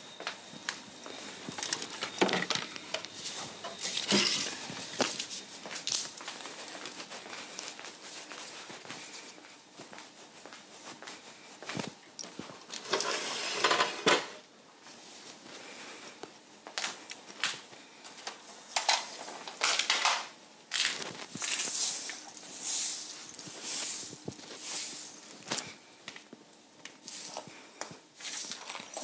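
Rustling and crinkling handling noises with scattered knocks and clatters, in a small room.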